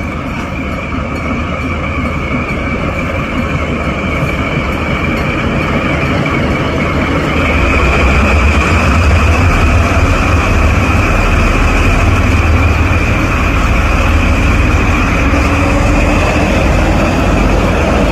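Nagoya Rinkai Railway diesel locomotive running close by, growing louder until about eight seconds in and then holding steady, with a heavy low engine drone and steady high-pitched tones above it. Near the end the engine note rises.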